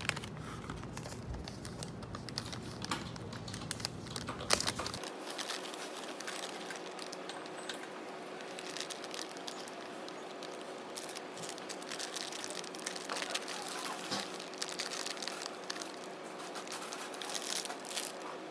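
Paper bag crinkling and rustling as baked goods are shaken out of it into a plastic tub, with irregular small clicks and taps and one sharper click about four and a half seconds in.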